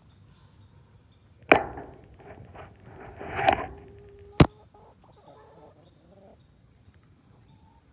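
A hen pecking at the phone's lens: a few sharp taps of the beak, the sharpest about four and a half seconds in, with a scuffling burst just before it. Faint low clucking sounds between the taps.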